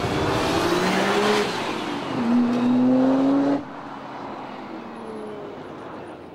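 1989 Nissan Skyline GT-R rally car's twin-turbo straight-six accelerating hard out of a corner. The revs rise, drop at an upshift and rise again. About three and a half seconds in, the sound drops suddenly to a fainter engine note as the car pulls away.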